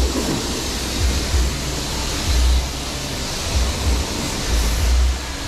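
Self-service car-wash pressure-washer lance spraying: a steady hiss of high-pressure water, with irregular low rumbles every second or so.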